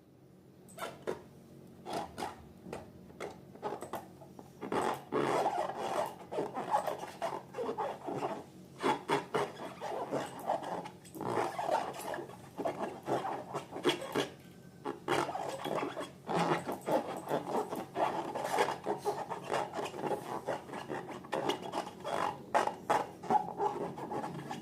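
Slime being mixed and squished: irregular sticky crackles and rubbing, sparse at first and turning busy after about four seconds.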